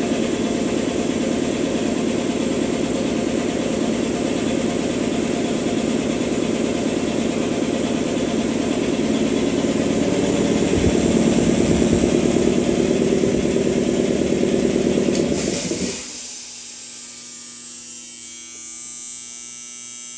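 1988 Emglo twin-head air compressor running steadily under load, then shutting off about 16 seconds in with a brief hiss of air just before it stops, leaving a quieter steady hum. It is reaching cut-out pressure: a normal cycle.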